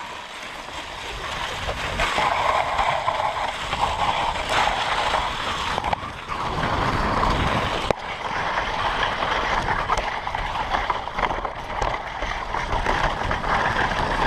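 Dog sled runners hissing and scraping over snow while a team of huskies pulls the sled; the noise builds over the first two seconds as the sled gets up to speed.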